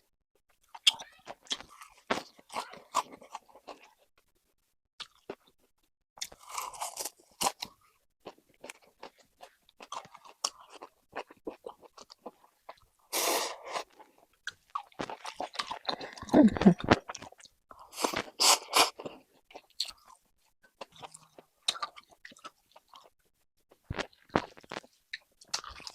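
A person chewing braised pork intestines close to the microphone: wet, crunchy chewing in irregular spells, with louder bites around the middle.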